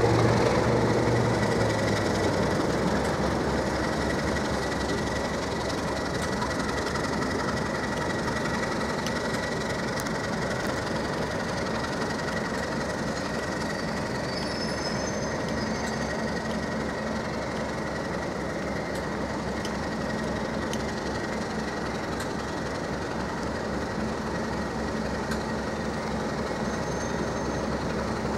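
Pair of Class 37 diesel locomotives with English Electric V12 engines running steadily at idle, with a thin, steady high whine over the engine noise. A deeper, louder engine note drops away about two seconds in.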